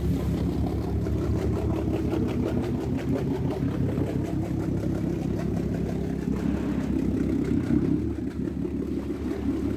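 Engine of a wooden motor-launch water taxi running at low speed close alongside, a steady low hum with some clatter, easing off near the end as the boat moves away.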